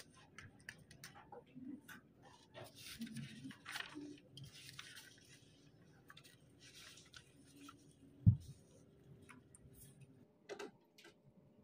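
Paper pages of a Hobonichi Cousin planner rustling and being turned, with small handling clicks and taps. A single dull thump about eight seconds in is the loudest sound.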